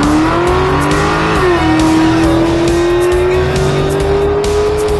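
Modified V8 car engine under hard acceleration, its pitch climbing through a gear, dropping sharply at an upshift about a second and a half in, then climbing slowly through the next gear until another upshift at the end.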